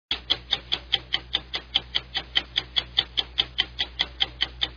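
Fast, even ticking like a clock, about five sharp ticks a second, starting abruptly out of silence over a low steady hum.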